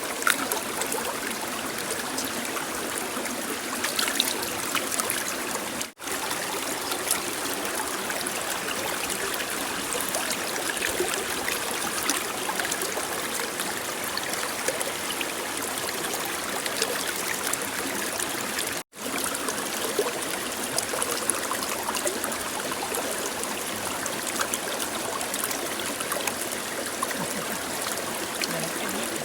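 Steady running water with small scattered splashes and clicks; the sound cuts out for an instant twice.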